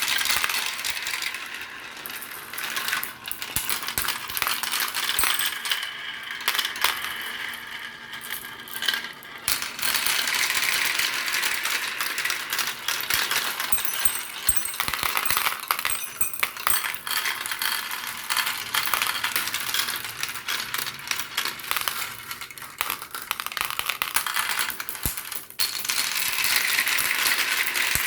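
Many marbles rolling and clattering through a marble run: a dense, continuous stream of small clicks and rattles.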